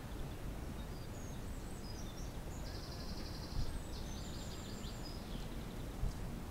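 Small birds singing: a run of high chirps and a quick buzzy trill over a steady low outdoor rumble, with two dull thumps, one in the middle and one near the end.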